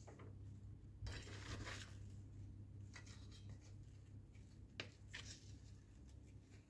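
Crinkling rustle of a thin clear plastic sheet being handled and wrapped around a cake layer, loudest for about a second, then a few shorter rustles and one sharp click just before the five-second mark.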